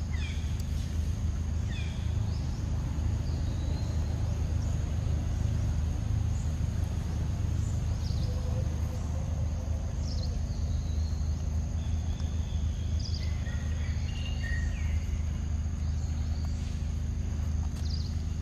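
Outdoor daytime ambience: a steady high-pitched insect drone with short, scattered bird chirps, over a constant low rumble.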